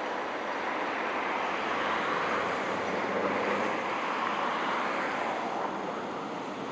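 A train rolling past: a steady rush of wheels on rail with a faint low engine hum, easing slightly near the end.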